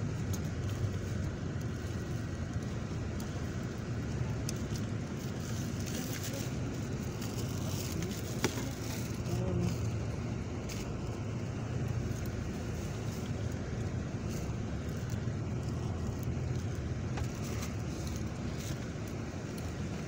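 Steady engine and road rumble inside a moving road vehicle, with one short sharp click a little before the middle.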